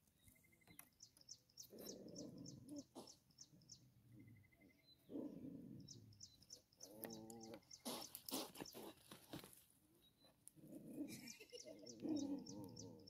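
A cat and two dogs squaring off, with several drawn-out, wavering animal growls and yowls. Birds chirp in quick runs of high notes, and there is a burst of rustling about eight seconds in.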